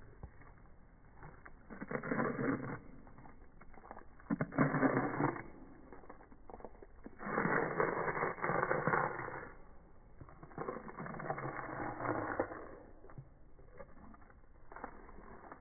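A dog chewing and crunching cheese balls, slowed down so that each bite comes out as a long, deep, drawn-out rasp; there are four of them.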